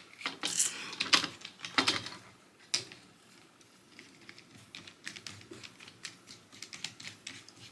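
Plastic and metal parts of a phone tripod clicking and tapping as it is handled and adjusted: a few sharper clicks in the first three seconds, then a run of lighter, irregular ticks.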